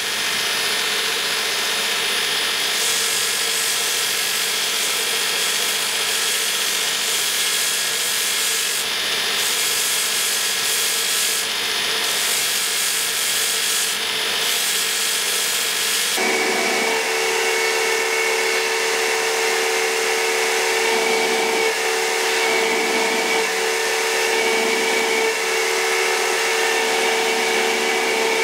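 Belt grinder running with metal pressed against the belt: a steady grinding noise. About halfway through, the sound changes abruptly to a steadier hum with a clear pitch, the grinder's small-wheel attachment shaping the knife's wood-and-metal handle.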